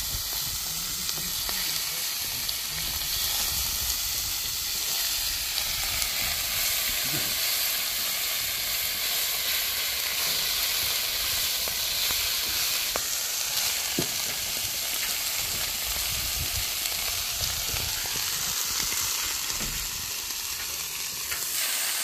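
Pork belly and sausages sizzling on a hot flat steel griddle plate, a steady hiss of frying fat, with a few light clicks of metal tongs against the plate.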